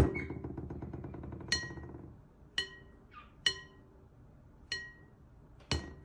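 Glass bowl tapped by a finger: four clear ringing pings about a second apart, with a sharper click near the end. A rapid rattle fades out over the first two seconds.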